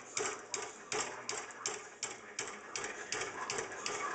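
Steady, evenly spaced metallic strikes on a punch, about three a second, embossing a sheet-metal acanthus leaf on a steel block in repoussé.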